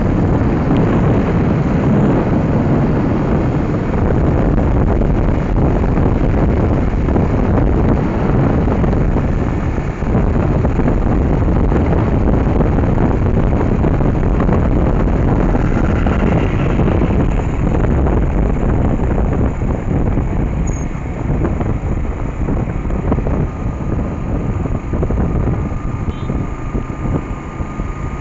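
Motorcycle on the move: wind rushing over the microphone with the engine running underneath. The rush eases somewhat over the last several seconds.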